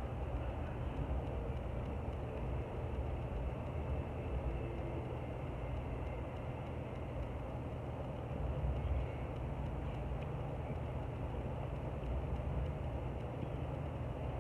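Steady low background rumble with a faint hiss above it and no distinct events.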